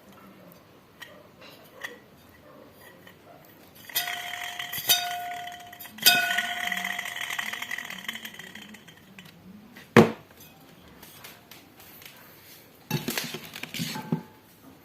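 Metal parts clinking against each other, three strikes that each leave a short metallic ring, then a single sharp knock and a quick cluster of clatters near the end.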